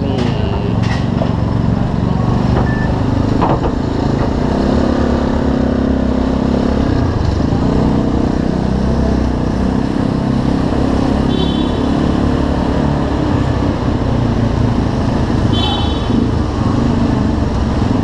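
Viar Cross X 200's single-cylinder engine running at low speed as the motorcycle rolls along, with other motor scooters' engines around it. Two short high-pitched toots come in the second half.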